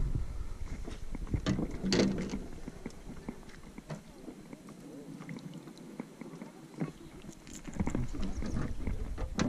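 Scattered clicks and knocks of fishing line, rod and hands against a kayak while a small peacock bass on a topwater lure is drawn in at the surface, over a low rumble. A brief pitched sound comes about two seconds in, and a sharper knock at the end.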